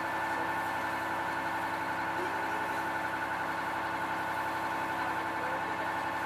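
Landing craft's inboard engine running steadily as the boat cruises, a constant drone with an even hum and no change in speed.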